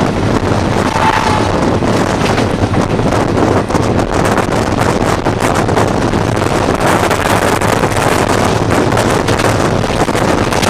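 Wind rushing over the microphone and rail running noise from an Indian Railways WCAM3 electric locomotive travelling at about 90 km/h, with rapid clatter through the middle. A short horn note sounds about a second in.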